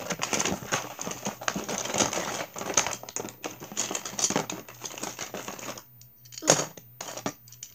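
A hand rummaging through a cardboard box of small loose items: a dense clatter and crinkle that lasts about six seconds, then a louder knock and a second, softer one.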